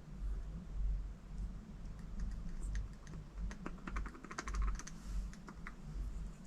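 Light clicks and taps of small metal parts being handled while an electric supercharger's cartridge is taken apart. There is a quick flurry of clicks in the middle, over low handling rumble.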